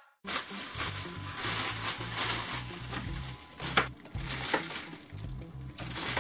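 A foil-and-plastic wrapper crinkling and crackling as it is folded and squeezed by hand, with a few sharper crackles around the middle.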